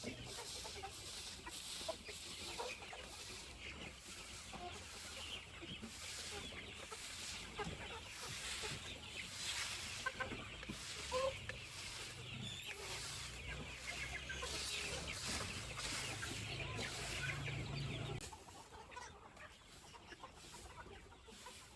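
Free-range chickens clucking, with many short scattered calls. A low steady rumble runs underneath and stops near the end.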